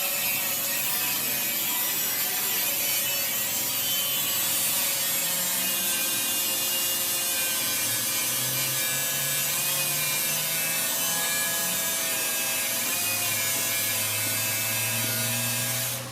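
Steady, continuous rasping metalworking noise, like a tool cutting or scraping on metal, with a faint steady whine. It cuts off abruptly at the end.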